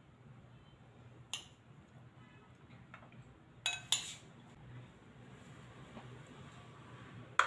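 Metal spoon clinking and scraping against a glass bowl and a metal baking tray as cooked beef is spooned out over boiled pasta shells. A few sharp clinks, the loudest cluster about four seconds in and another sharp one near the end.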